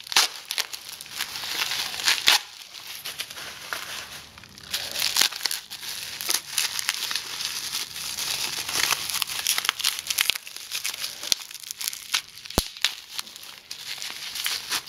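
Plastic bubble wrap crinkling and rustling as it is pulled off a jar by hand, with many sharp, irregular crackles.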